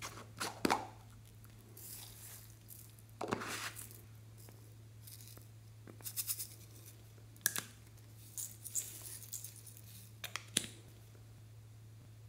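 Plastic novelty containers handled over a glass dish: a scattered run of short clicks, taps and brief rustles, the clearest near the start and around the middle. A steady low hum runs underneath.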